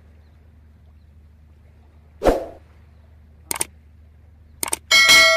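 A dull thud about two seconds in, then a few sharp clicks, then near the end a metallic clang that rings on for over a second.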